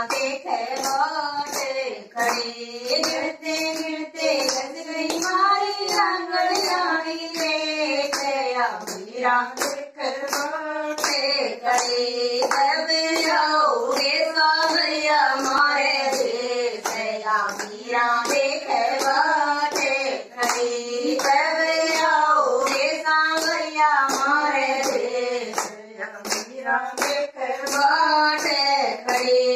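Women's voices singing a Rajasthani devotional bhajan unaccompanied, the melody rising and falling, while hand claps keep a steady beat.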